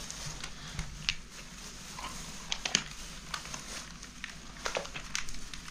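Irregular soft clicks and rustles of small objects being handled by hand.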